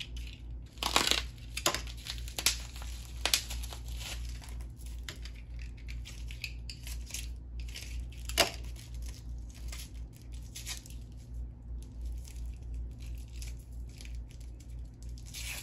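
Wrapping being torn and crinkled by hand as candles are unpacked. A cluster of sharp rips and rustles comes in the first few seconds and another sharp one a little past the middle, then softer rustling follows.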